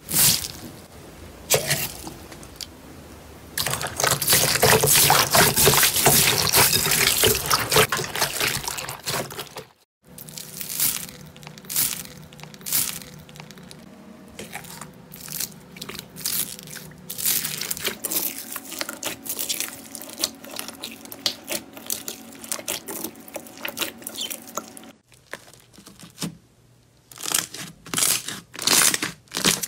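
Slime being squeezed and worked by hand, making dense crackling and crunching sounds, then scattered clicks and pops, in a few separate takes.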